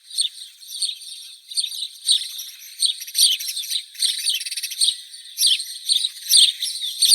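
House sparrow chirping: a busy, continuous run of short, high chirps, some much louder than others.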